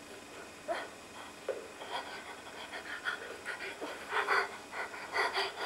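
A woman's shaky, uneven panting breaths in terror. They are sparse at first, then come quicker and louder in the second half.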